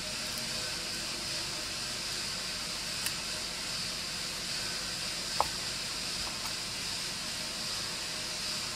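Steady background hiss with a few light taps as a knife slices a banana over a nonstick frying pan and the slices drop into it; one sharper tap with a brief metallic ring comes about five seconds in.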